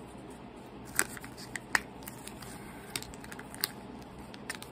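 Small plastic toy pieces from a Kinder Joy egg being handled: a few sharp, light clicks and faint rustling, loudest about a second in and again just before two seconds.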